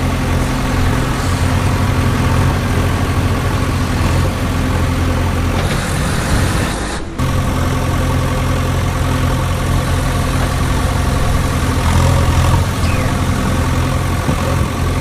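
An engine idling steadily, with a brief break about seven seconds in.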